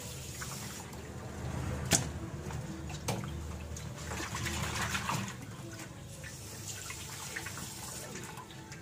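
Hands splashing and rubbing in water in a metal basin in a stainless steel sink, with a tap running into it. A sharp knock about two seconds in, the loudest sound, and a smaller one about a second later.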